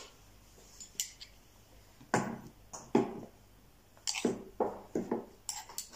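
Short, sharp clicks and knocks of a metal spoon against a glass baby-food jar and the plastic high-chair tray during spoon-feeding, about eight at uneven intervals, more frequent in the second half.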